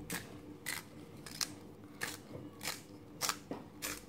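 Colour pencil being sharpened in a small handheld sharpener: a run of short scraping strokes, roughly two a second, as the pencil is turned against the blade.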